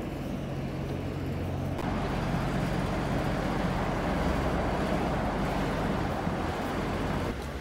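Road traffic noise from cars passing on the road alongside: a continuous rushing hum with a low rumble. It grows a little louder about two seconds in and drops again near the end.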